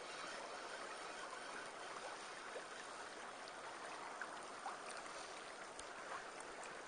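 Steady hiss of a small creek's running water, with a few faint clicks in the second half.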